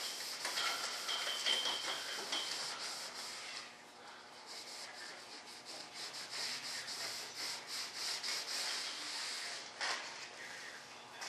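Cloth rag buffing mold wax off a smooth white mold surface in brisk back-and-forth strokes: a dry, hissing rub that swells and fades with each stroke.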